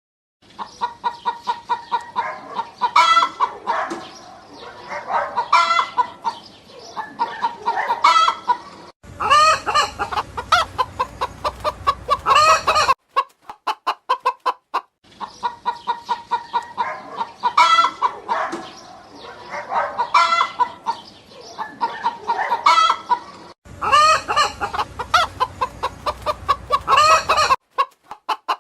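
Chickens clucking in rapid runs of short calls, with louder squawks between. About halfway through, the same stretch of clucking seems to start over.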